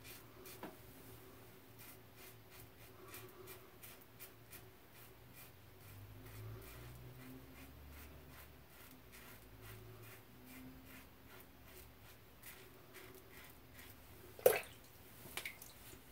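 Muhle R41 double-edge safety razor scraping through lathered stubble in short strokes, a faint run of small crackling scrapes. A single sharp knock comes near the end.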